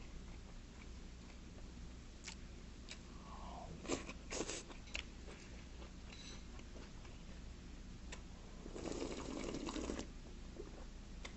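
Mukbang eating sounds: light clicks of chopsticks against dishes and soft chewing, then about a second of slurping soup straight from the bowl near the end.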